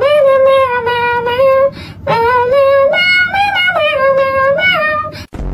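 A high-pitched voice singing a melody in held notes, in short phrases with brief breaks about every second or two, as part of a song's soundtrack.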